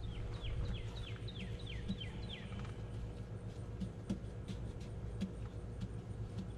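A songbird whistles a quick run of about eight down-slurred notes, roughly three a second, during the first two and a half seconds, over a steady low rumble. A few faint clicks follow later.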